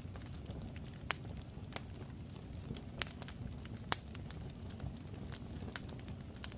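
Fire crackling: a steady low rumble with sharp pops scattered through it, the loudest about three and four seconds in.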